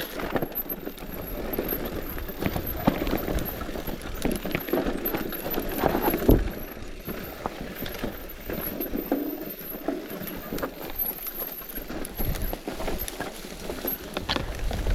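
Bike clattering and rattling over rough, rocky ground, with irregular knocks and a rumble of wind on the microphone.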